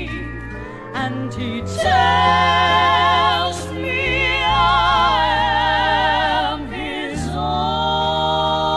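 Gospel group music: voices holding long notes with vibrato in harmony over sustained bass notes, the chord changing about every two to three seconds.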